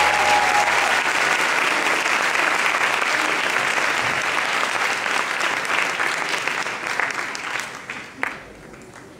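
Audience applauding, thinning out and dying away near the end, with one sharp click just after it fades.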